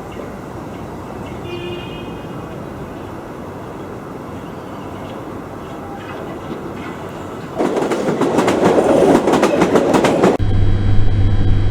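Train sound effect: a steady running rumble on the rails; about seven and a half seconds in a much louder, rapid clattering starts. Near the end it cuts suddenly to a steady low engine drone.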